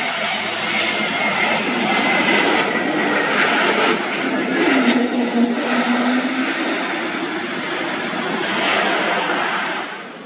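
Jet airliner passing close by: loud engine noise with a thin whine that slowly falls in pitch, dropping off sharply near the end.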